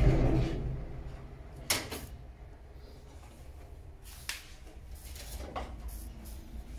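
Kitchen handling noises: a low thump at the very start, then a few sharp clicks and knocks spaced a second or more apart, as dishes and a spoon are handled on the counter.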